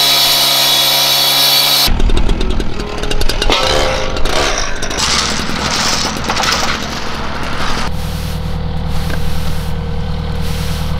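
Gas-powered saw engine running at high speed, then a stretch of rough, noisy cutting. About eight seconds in it gives way abruptly to a lower, steady engine hum.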